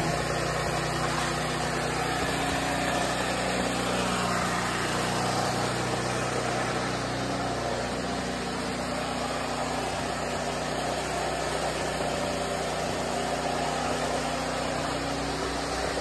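Portable air compressor for the pneumatic nail gun running steadily: a constant motor hum with no nail shots.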